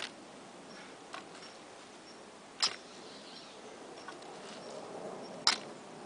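Manual two-handled post-hole digger driven into soft soil: three sharp strikes a little under three seconds apart, the last the loudest, with fainter clicks in between.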